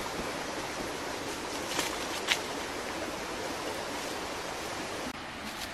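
Steady rushing of a forest stream, with two sharp snaps about two seconds in, like dry twigs or leaves crackling.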